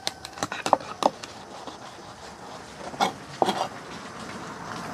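Knife chopping through a barracuda to cut it into steaks. A quick run of sharp knocks comes in the first second, and another few come about three seconds in.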